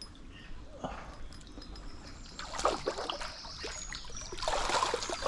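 Shallow stream water trickling and splashing, with sharper splashes about two and a half seconds in and a busier run of splashing near the end.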